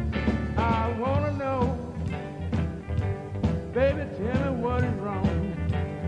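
Upbeat beach music for shag dancing: a song with a steady, swinging dance beat and a bending lead melody over it.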